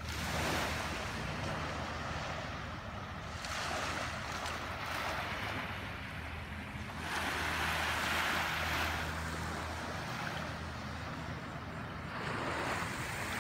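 Small waves washing onto a sandy shore, the surf noise swelling and easing every few seconds, with a low steady hum underneath.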